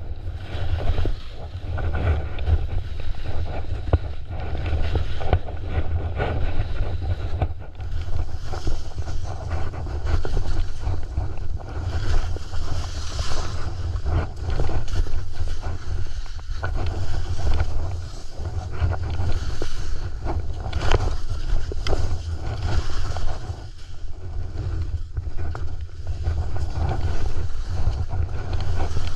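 Skis carving and scraping down a steep snow slope, the scrape rising and falling in loudness, with steady wind buffeting the action camera's microphone.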